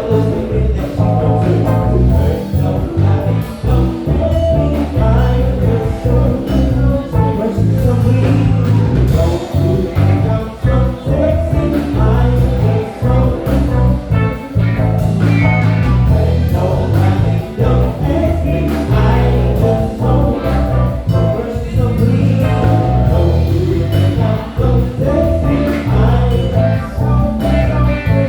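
Live band playing: a heavy, steady electric bass line with a drum kit keeping time under keyboard and guitar parts.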